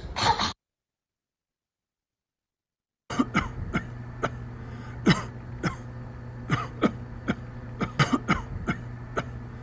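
A person coughing over and over, short dry non-productive coughs about two a second, over a steady low room hum. It is the daily, repetitive cough of habit cough syndrome. The tail of another coughing bout cuts off at the very start, followed by a few seconds of silence before the coughing begins.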